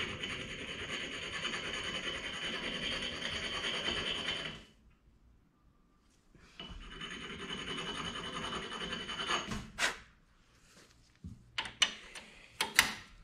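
The stem end of a Tecumseh engine's exhaust valve being ground on a grinding stone, a steady scraping in two stretches, the first about five seconds, the second about three; it is taking a few thousandths off to open up a valve clearance that is too tight. A few sharp clicks and taps follow near the end.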